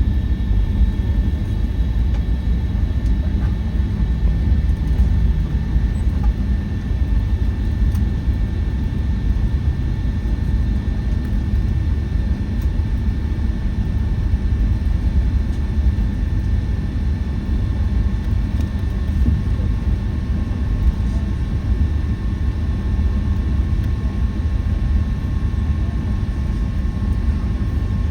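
Steady cabin noise inside a Boeing 757-200 airliner: a low rumble of engines and airflow with a faint steady whine over it.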